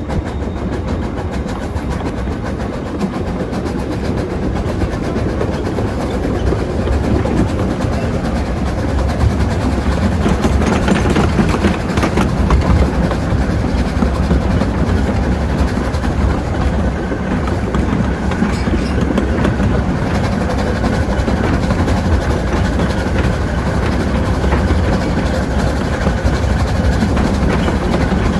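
Small narrow-gauge steam locomotive running with its train, heard from the carriage behind: a steady rumble of wheels on the rails, growing a little louder after several seconds.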